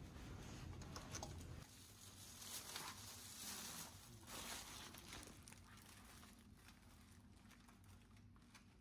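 Near silence: quiet corridor room tone with faint rustling and soft footsteps on carpet. A low hum drops away about a second and a half in.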